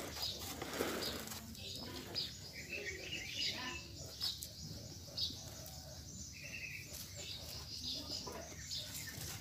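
Fingers scraping and poking through loose potting soil around a young bonsai's roots, with scattered small rustles and taps. A few short bird chirps are heard in the background.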